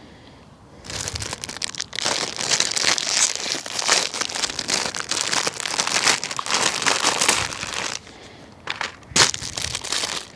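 Thin plastic food packet crinkling and crackling as it is handled and opened. It starts about a second in and goes on for several seconds, with one short, louder crackle near the end.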